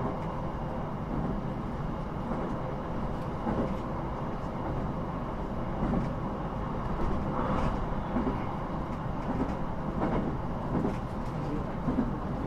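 Cabin noise inside a Sendai Airport Line electric commuter train running between stations: a steady low rumble of wheels on rails, with a few faint knocks.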